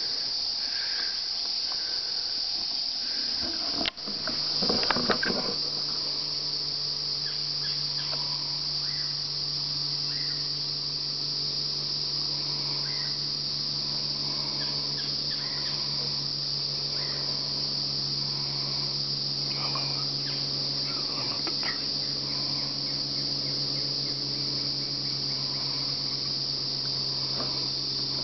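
Steady, high-pitched drone of insects in summer woodland. About four seconds in there is a sharp click and a brief rustle, and a faint low hum runs on under the insects after that.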